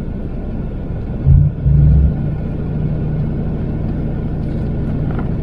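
Work truck running with a steady low rumble. Two short, louder low surges come about one and a half and two seconds in.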